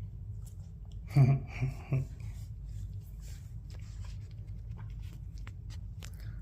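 Cat chewing and licking at deli turkey in a dish, small wet clicks and smacks scattered throughout over a steady low hum. About a second in, a brief, louder pitched voice-like sound stands out.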